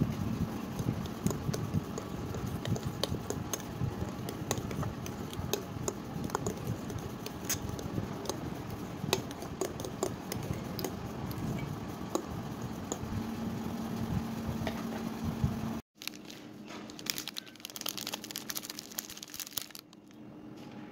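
A spoon clicking and scraping against a bowl while stirring banana cake batter, over a steady low hum. The sound cuts out for an instant about three-quarters through and resumes more quietly.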